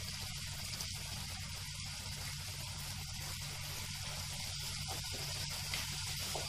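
Chopped tomatoes with almond and cashew pieces sizzling steadily in a non-stick pan over a high gas flame, with a low steady hum underneath.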